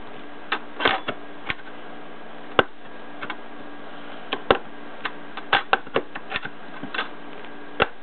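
Flathead screwdriver prying metal ties off old Lionel three-rail toy train track: irregular sharp metallic clicks and snaps, about fifteen over the stretch, some louder than others.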